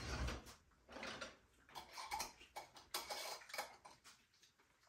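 Forks clicking and scraping on ceramic dinner plates during a quiet meal: faint, irregular small clicks.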